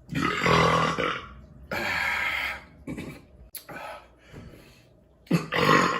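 A man burping after drinking beer: a loud, low belch lasting about a second at the start, followed by more belching sounds and another loud one near the end.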